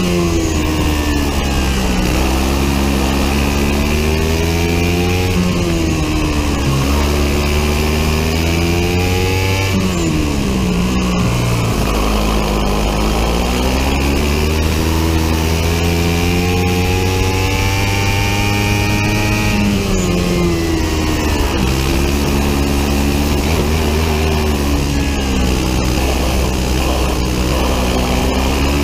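Biland SA250 four-stroke single-cylinder kart engine at racing speed, heard onboard: the revs climb steadily on each straight and drop off sharply into each corner, several times over.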